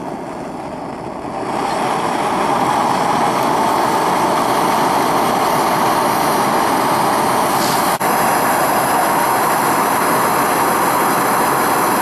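Bernz-O-Matic air/propane hand torch firing into a small pipe furnace: a steady rushing hiss of the burner that grows louder about two seconds in and then holds level. A faint click about eight seconds in.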